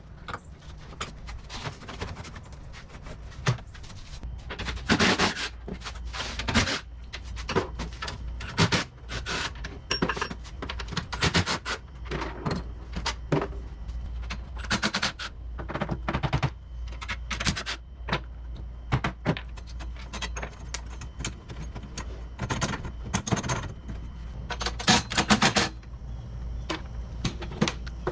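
Sped-up work sounds from stripping a golf cart: fast, irregular clicks, knocks and rattles of parts and tools being handled, with a few louder short bursts, over a steady low hum.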